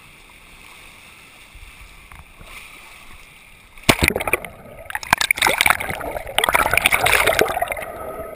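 Sea water sloshing around an action camera at the surface; about four seconds in the camera goes under and the sound turns to loud, dense crackling and bubbling of water against the camera underwater.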